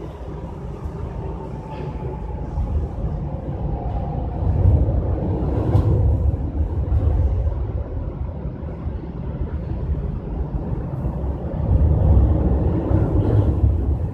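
Low rumble of passing vehicles, swelling about five seconds in and again near the end, with a faint falling tone in the first few seconds.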